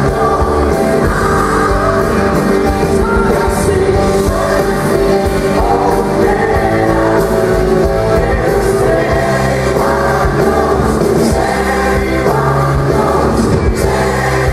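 Live pop-rock band music with a woman singing lead over a gospel choir, backed by piano, electric bass and guitars.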